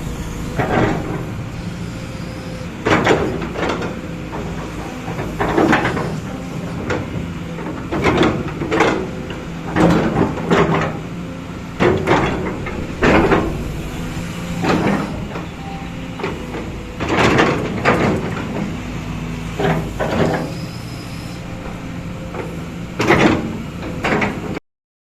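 Kobelco SK200 hydraulic excavator running, its diesel engine a steady low drone, with a string of loud, sharp clanking noises every one to two seconds as the machine works.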